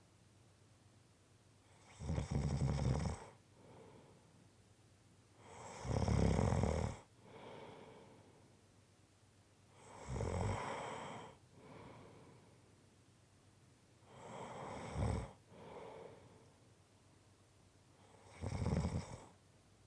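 A person snoring in their sleep: five loud snores about four seconds apart, most followed by a softer breath out.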